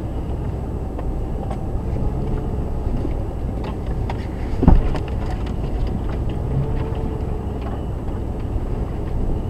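Jeep Grand Cherokee crawling over a rocky trail at walking pace, heard from inside the cabin: a steady low rumble of engine and drivetrain, scattered clicks of stones and brush, and one sharp thump about halfway through.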